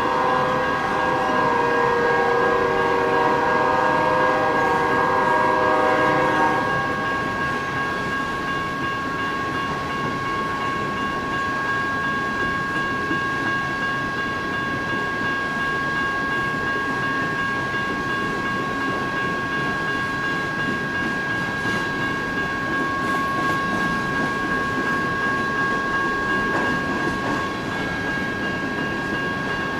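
A BNSF freight locomotive's air horn sounds a held chord that stops about six and a half seconds in. Loaded-length coal train hopper cars roll past with a steady rumble and wheel clatter, and a steady high ringing tone runs underneath.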